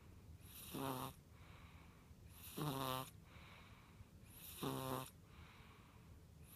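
A five-week-old snoring in sleep: short, regular snores about every two seconds, three in all, with a fourth beginning at the very end.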